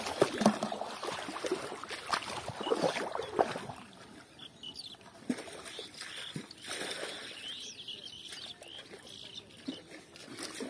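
Feet splashing through shallow water in the first few seconds, then a quieter stretch with birds chirping now and then.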